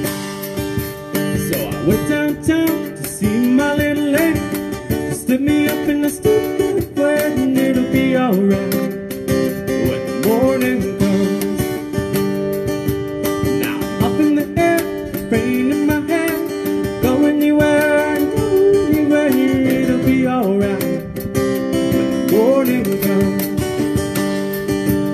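Live acoustic duo playing a song: a strummed acoustic guitar and a male singer, with a steady beat of hand percussion on a cajón and cymbals.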